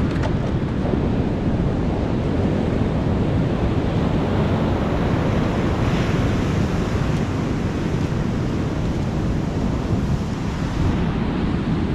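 Ocean surf breaking and washing up the beach, a steady rushing noise, with wind on the microphone.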